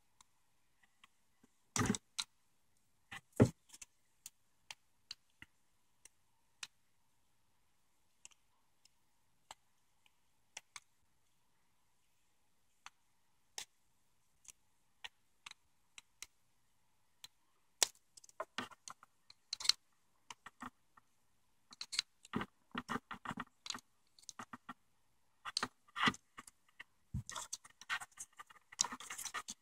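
Scattered sharp plastic clicks and scrapes as a screwdriver tip pries at the locks of a GM E38 PCM harness connector, the loudest two snaps a few seconds in. Toward the end the clicking thickens into a busy rattle of plastic and the wire bundle being handled.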